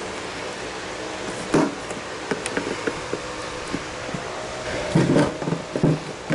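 Scattered clicks, taps and creaks of a plastic headlight housing and lens being worked with a pry tool, loudest in a cluster about five seconds in. A steady low hum runs underneath.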